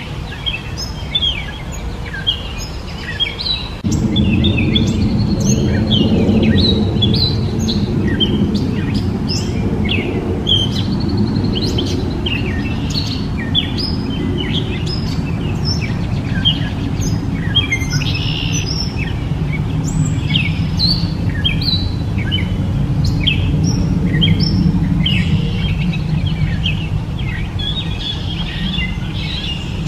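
Gray catbird singing a long, jumbled run of short notes that change pitch from one note to the next, with no pause. A low background rumble underlies it and gets louder about four seconds in.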